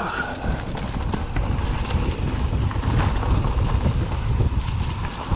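Wind buffeting the microphone over the rumble of a Canyon Neuron full-suspension mountain bike rolling fast downhill on a rough trail, with scattered small knocks and rattles from the bike.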